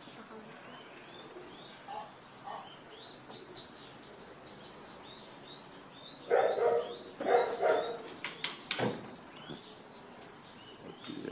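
A bird chirping over and over, short high rising-and-falling chirps about three a second. About six seconds in come two louder, lower cries, followed by a few sharp clicks.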